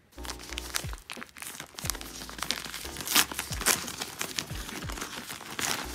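Plastic packaging bag crinkling and crackling as hands work it open, over background music.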